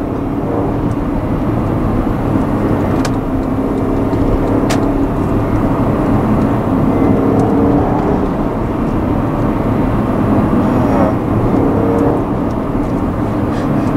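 Steady engine and road noise inside the cabin of a 2011 Porsche Panamera Turbo under way, its twin-turbo V8 giving a low, even hum.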